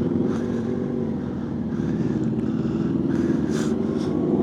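Motorcycle engine running steadily at low revs, with a few brief rushes of hiss over it.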